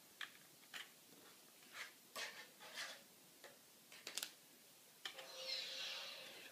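Computer keyboard keys being pressed, a series of separate clicks, some in quick pairs. Near the end a longer, fainter sound with a steady pitch follows.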